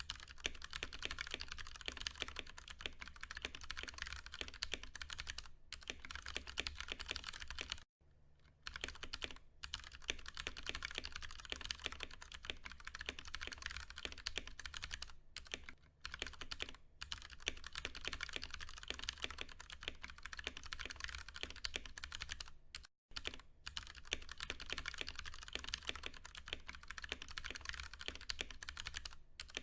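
Fast, continuous typing on a Ducky One 2 Mini mechanical keyboard with Cherry MX Brown switches: a dense run of key clacks, with a few short pauses, the longest about 8 and 23 seconds in.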